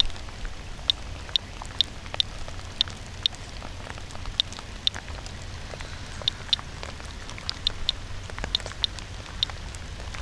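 Radiation Alert Inspector Geiger counter clicking at random intervals, about one to two sharp clicks a second, each click marking a detected radiation count. A faint steady hiss and low rumble run behind the clicks.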